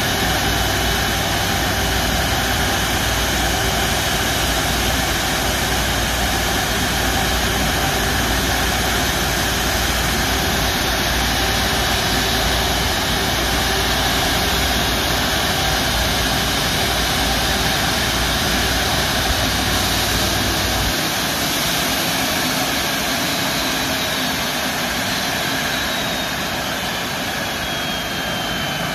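Rolls-Royce Trent 772B-60 turbofans of an Airbus A330-243 running at taxi idle close by: a steady jet whine over a rushing hiss. The low rumble underneath drops away about two-thirds of the way through and the sound gets a little quieter.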